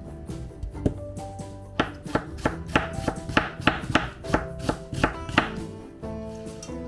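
A knife slicing an onion into thin strips on a plastic cutting board: a run of about a dozen sharp chops, about three a second, starting a couple of seconds in, over soft background music.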